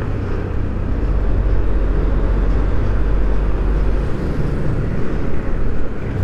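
Riding noise from a Yamaha NMAX 155 scooter in traffic: a steady mix of engine, tyre and wind noise, with the deep rumble easing about four seconds in.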